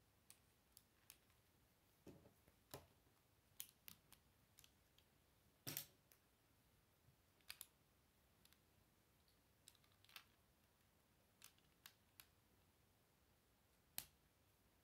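Plastic Lego bricks clicking as they are handled and pressed onto a model: faint, irregular clicks, the loudest about six seconds in.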